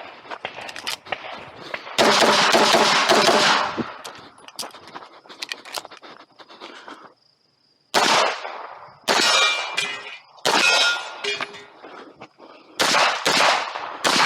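Handgun fire during a timed practical shooting stage: a fast string of shots about two seconds in, scattered quieter reports and clicks, then several more quick groups of shots from about eight seconds in.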